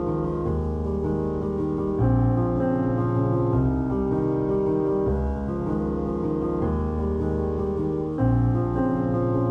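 Background music of slow, sustained piano chords, a new chord every couple of seconds.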